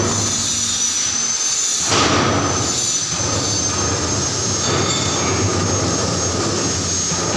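Large cement mixer's skip hoist and motors running: a steady low hum under a continuous high-pitched metallic squeal, with a brief louder rush about two seconds in. About halfway through, the loading hopper starts being winched up its inclined track.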